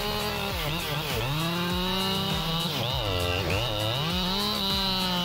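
Husqvarna 592 XP two-stroke chainsaw running at high revs in a cut, its engine pitch sagging under load several times and picking back up, with the deepest bog about three seconds in.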